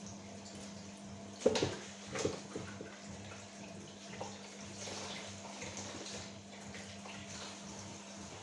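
Water running from a tap, with two sharp knocks about a second and a half and two seconds in. A steady low hum under it stops just before the end.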